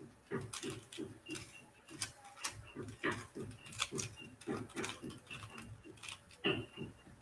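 Plastic Rubik's cube being turned by hand: a quick, irregular run of soft clicks and clacks as the layers are twisted.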